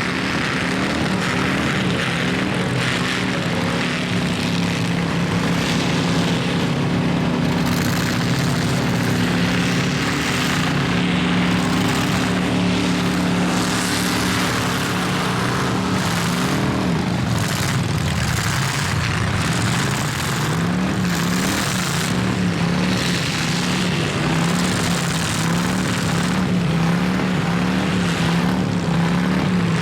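Demolition derby car engines running hard in a steady drone that drops about halfway through, then revs up and down repeatedly. Sharp noisy bangs of cars colliding are scattered through it.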